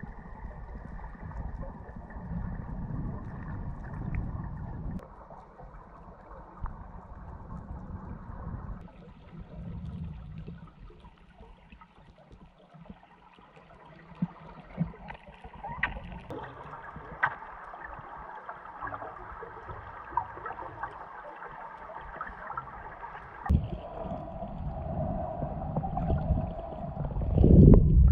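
Underwater water noise picked up by the camera: a low rumbling, gurgling wash with scattered small clicks. It changes abruptly a few times and swells loudest near the end as the camera comes close to the surface.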